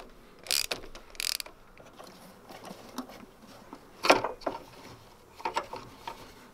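Hand ratchet clicking in two short runs within the first second and a half as it backs off the plastic oil filter housing cap through a wobble extension and 27 mm socket. Then come scattered knocks and clicks as the loosened cap is handled, the loudest about four seconds in.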